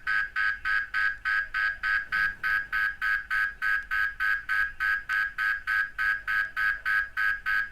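Kaadas M9 smart door lock's built-in alarm siren beeping rapidly and evenly, about four beeps a second. It is set off because defense mode is enabled and the door was unlocked from inside.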